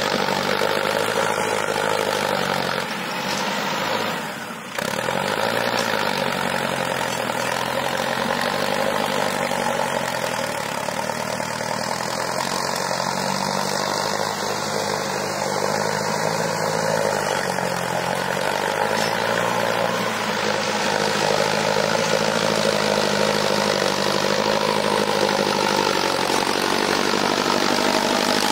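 Mahindra Arjun Novo 605 tractor's diesel engine running steadily under load while pulling a tine cultivator. It is a continuous drone with gently wavering pitch. It dips briefly about 4 s in, cuts back in abruptly, and grows a little louder over the last part as the tractor comes close.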